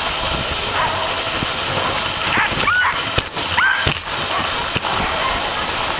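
Sled dogs yelping a few times, short rising cries about two and a half to four seconds in, over a steady hiss as the dog sled glides over the snow.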